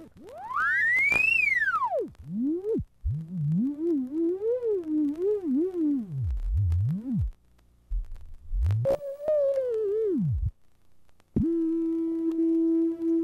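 Electronic audio test tones. One tone sweeps up to a high whistle and back down, then wavers irregularly up and down in pitch with brief dropouts. Near the end a steady mid-pitched tone returns and pulses evenly in loudness, the beating of two nearly matched test tones drifting in phase.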